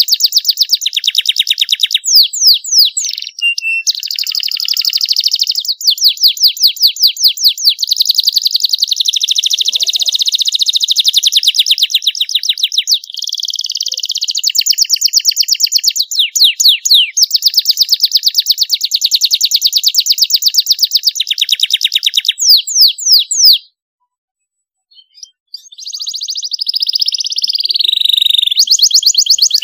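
Domestic canary singing long runs of very fast trills, switching from one trill to another, with sweeping whistled notes in between. The song breaks off for about two seconds late on, then starts again.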